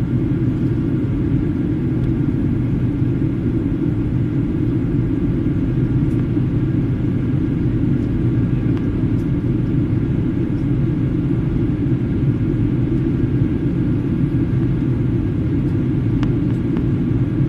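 Airliner cabin noise in flight: a steady, loud rumble of engines and airflow with a faint steady whine above it.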